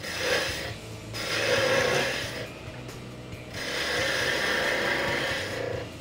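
Skew chisel cutting wood spinning on a lathe, in three passes: a short one at the start, one about a second in lasting just over a second, and a longer one from about three and a half seconds until just before the end.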